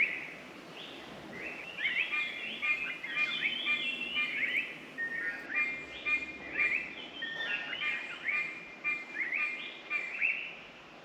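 Wild birds singing in the dawn chorus: quick chirping phrases of rising and falling notes, repeated over and over from about a second and a half in, from a songbird whose species is not identified.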